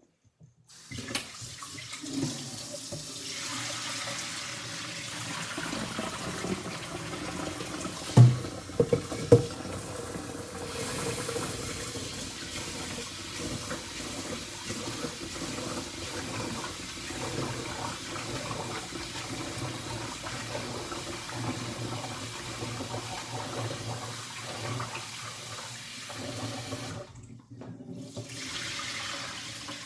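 Kitchen tap running into a rice cooker's inner pot in a stainless steel sink as rice is rinsed, with two sharp knocks about a second apart some eight seconds in. The water sound breaks off for a moment near the end, then runs again.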